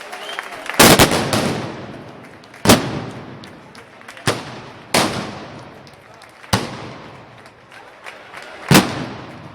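Loud gunpowder blasts at festival firing: about six sharp bangs at irregular intervals, each with a short echoing tail.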